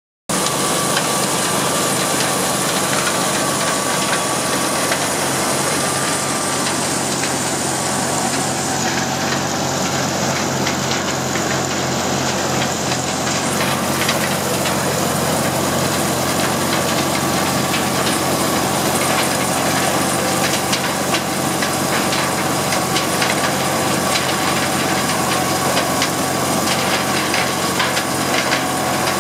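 Minneapolis-Moline corn sheller running steadily under load, driven by an Allis-Chalmers WD45 tractor: a constant machine noise with a thin steady whine and a continuous patter of rattles as ear corn is shelled and kernels and cobs pour out.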